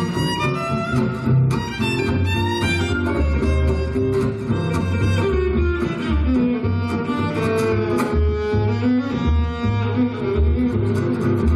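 Live violin melody played with the bow, over a deep bass line of sustained low notes.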